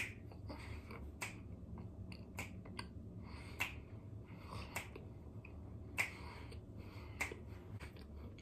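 Close-up chewing of a squeaky mouthful, heard as scattered sharp clicks and squeaks, a few of them louder than the rest.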